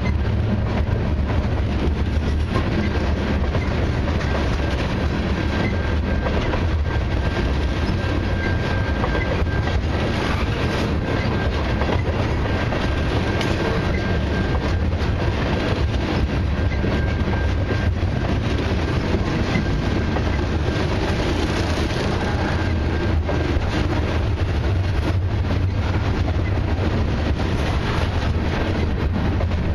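Freight cars of a long mixed freight train, tank cars and covered hoppers, rolling past at speed: a steady rumble of steel wheels on rail with clickety-clack from the wheels over rail joints. A faint high steady whine runs through much of it.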